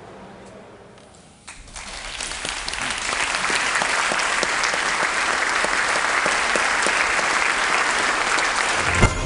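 Audience applauding: the clapping starts about a second and a half in, swells over a second or two, holds steady, and is cut off near the end.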